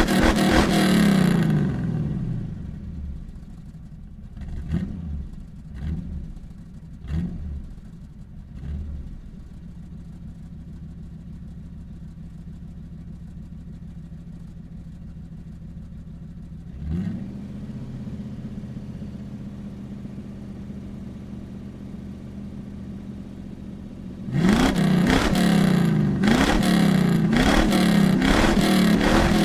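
Ford Mustang engine running at high revs, then settling to a steady idle within about two seconds. Four short throttle blips follow over the next several seconds, and the idle steps up slightly about halfway through. Near the end it jumps back to loud running, the revs rising again and again.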